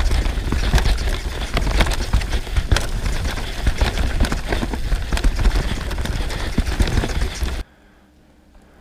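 Downhill mountain bike ridden fast over a rough, rocky trail: a dense clatter of knocks and rattles from tyres and frame striking rock, over a heavy rumble of wind on the camera's microphone. The noise cuts off abruptly near the end.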